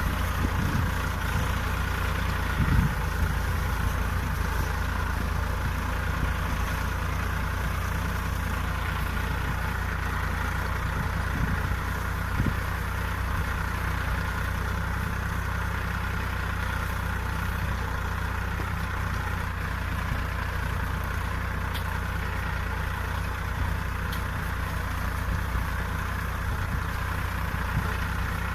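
Tractor engine running steadily while pulling a deep plough, with a brief knock about three seconds in.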